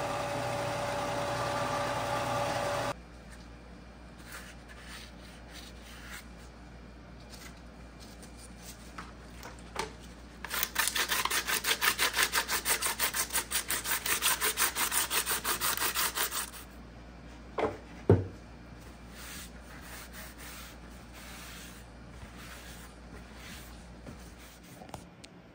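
Sandpaper rasping back and forth over a body-filler-coated cardboard panel: quick hand-sanding strokes, about four or five a second, for around six seconds in the middle. Before it, a steady machine hum cuts off abruptly about three seconds in. After it come two sharp knocks, the second the loudest sound.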